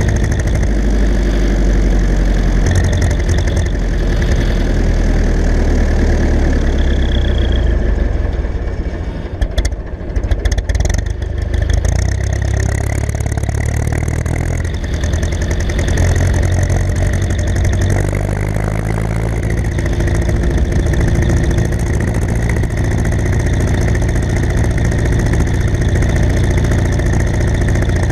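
Ursus C-360 tractor's four-cylinder diesel engine running steadily. About nine seconds in it briefly drops in loudness, with a few knocks, for a couple of seconds before coming back up to its steady note.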